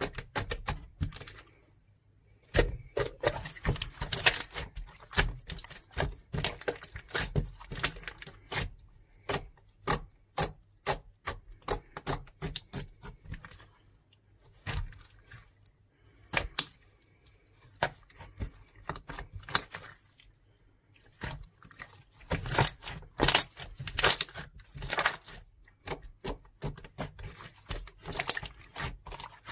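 Close-up handling sounds: quick irregular clicks, taps and crinkles of small objects being picked up and set down, with a few brief pauses.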